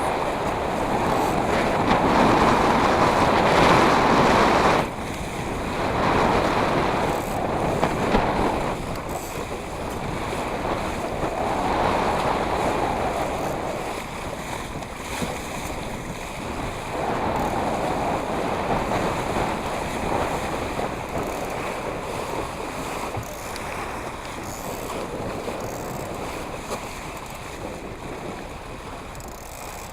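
Sea water rushing and splashing, with wind buffeting the microphone. The water swells up every few seconds and grows quieter toward the end.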